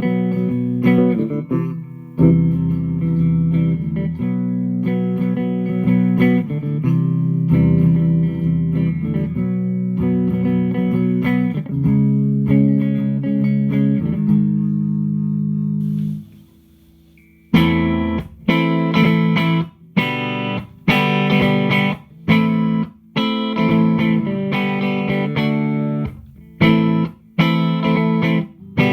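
Electric guitar played through a Hughes & Kettner Attax Metroverb 50-watt solid-state combo with a 12-inch Celestion speaker. It rings out sustained chords, then after a brief pause about halfway through switches to short, choppy chords with a brighter tone.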